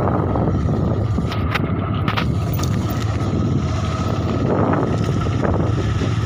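Motorcycle engine running steadily in fourth gear at low speed, with wind rushing over the microphone.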